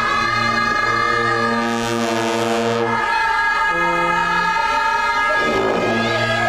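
Background music of long held low chord tones that shift pitch a few times, like a slow organ or horn-like pad.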